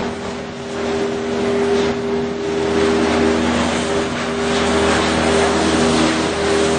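Woodchip processing machinery running steadily: a loaded belt conveyor and its drives give a constant mechanical drone with a steady hum and a hiss of noise over it.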